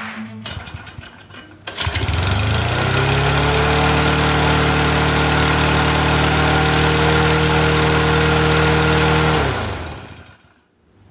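Push mower's small engine starting about two seconds in after a short rattle, rising quickly to a steady run with its refitted muffler, then shut off and winding down to a stop near the end.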